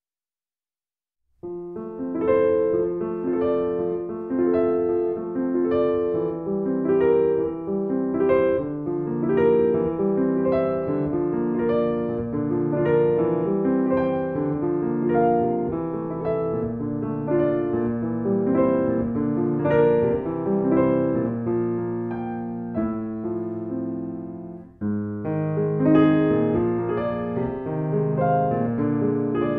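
Solo Steinway grand piano playing a classical piece. It comes in about a second and a half in after silence, breaks off briefly about 25 seconds in, and then carries on.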